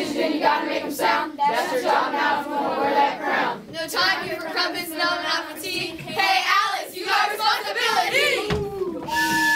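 Young voices of a school-play cast singing together in chorus, a lively stage song number.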